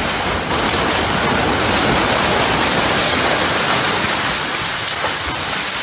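Loud, steady rushing noise in the seconds after an explosion, as earth and debris rain down through the dust cloud.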